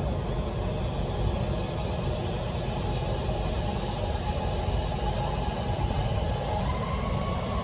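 Metro train heard from inside the car while running: a steady low rumble, with a faint motor whine that steps up in pitch near the end.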